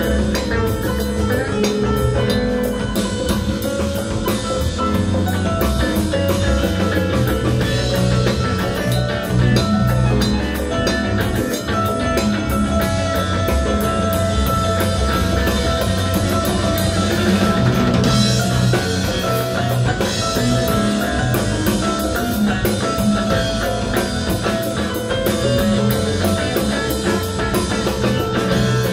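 Live rock band playing at full volume: electric guitar over bass and drum kit, with keyboards, a dense and steady sound.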